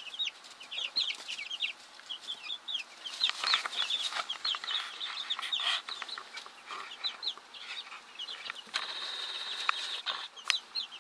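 A brood of young chicks peeping: many short, high, falling peeps overlapping at a rapid, uneven pace.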